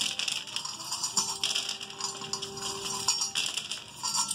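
Dry dog kibble scattering and rattling across a wooden floor and corgi puppies crunching it, a dense run of small clicks and crunches.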